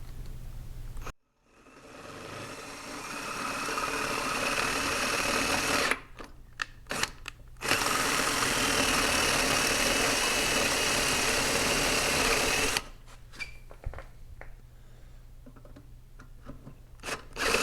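Power drill boring out a stripped bolt hole in a Predator 224 engine's side cover. The motor winds up and runs steadily with a high whine until about six seconds in, is blipped a few times, then runs again for about five seconds. After more short blips it starts again right at the end.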